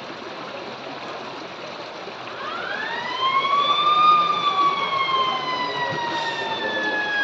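Zipline trolley pulleys whining along a steel cable over rushing stream water. The whine rises about two and a half seconds in as the trolley picks up speed, then falls slowly as it runs on.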